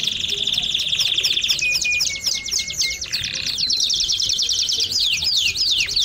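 Belgian canary singing a fast, continuous song: rapid rolls of downward-sweeping notes over a buzzy trill for the first second and a half, then a short row of lower notes, then quick sweeping notes again.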